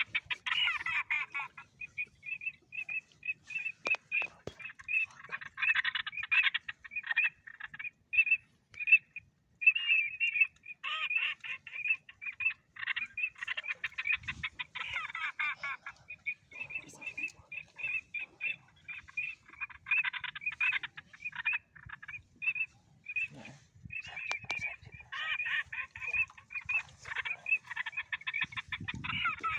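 Ducks calling: a long run of short repeated calls, several a second, with denser bursts of chatter now and then.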